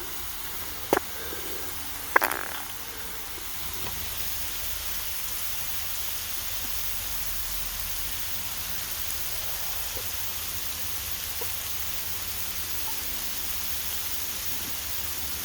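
Smash burger patties sizzling steadily on a hot cast iron griddle, with two short sharp clicks about one and two seconds in.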